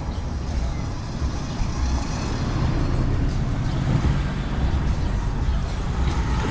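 Town street noise: a motor vehicle running close by over a steady low rumble of traffic.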